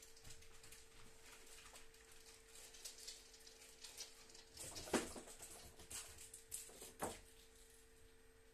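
Boa constrictor shifting over bark-chip substrate around its prey: faint rustling and light scraping, with a louder bump about five seconds in and another about seven seconds in, over a faint steady hum.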